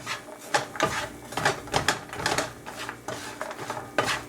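A spoon stirring sugar-coated almonds in a skillet: the almonds clatter and scrape against the pan in quick, irregular strokes, their sugar coating dried to a powdery crust.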